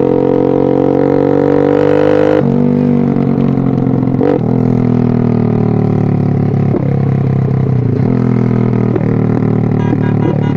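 A loud, steady droning tone with many overtones, like music, shifting down in pitch about two seconds in.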